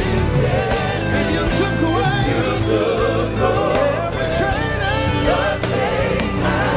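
Gospel praise music: singers and a choir with band accompaniment, a steady bass and drums under the voices.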